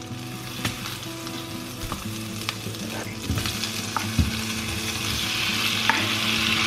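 Food sizzling in a frying pan while being stirred, with a few sharp clicks of a utensil against the pan. The sizzle grows louder toward the end.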